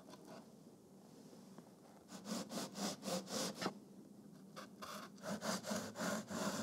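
Knife sawing through the crusty edge of a sponge cake sheet on a wooden cutting board: two runs of quick back-and-forth strokes, the second starting about halfway in.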